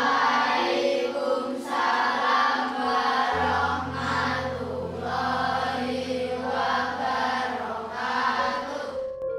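Background music with a choir-like chant: voices swell about once a second over held low notes that shift about three seconds in.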